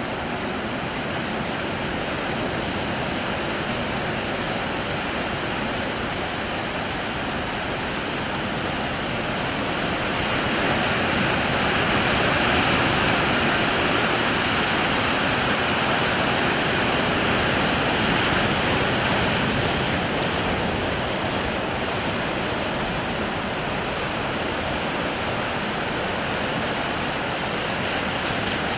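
Breaking surf at a river mouth, a steady rush of waves that swells louder about ten seconds in and eases off again after about twenty.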